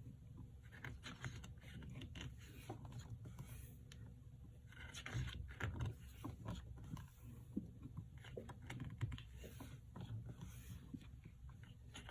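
Hands handling a CD album's packaging and contents: scattered light clicks, taps and rustles, with a louder stretch of rustling about five to six seconds in.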